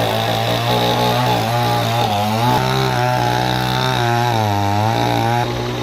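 Chainsaw cutting into a tree, its engine running with a steady buzz. Its pitch sags and recovers twice, about two seconds in and again near the end.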